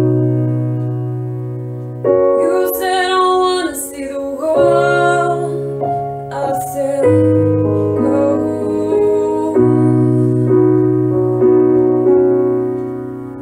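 Slow piano ballad: sustained piano chords struck about every two and a half seconds and left to fade, with a female voice singing a phrase over them in the first half.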